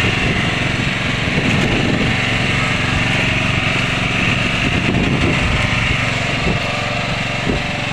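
A small engine running steadily: a constant drone with a hiss above it.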